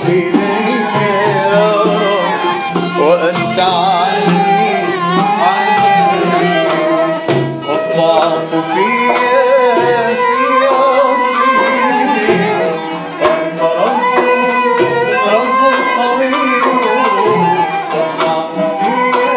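Small ensemble playing Middle Eastern–Turkish music: a violin carries a wavering melody with vibrato over a steady rhythm on hand drums, a darbuka (goblet drum) and a small frame drum.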